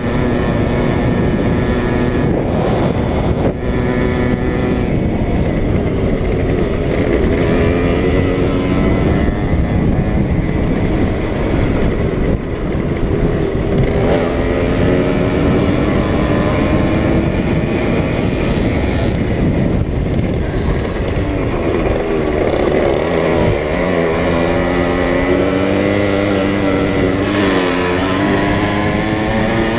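Small two-stroke moped engine running hard, its pitch climbing and dropping again and again as the throttle is opened and eased.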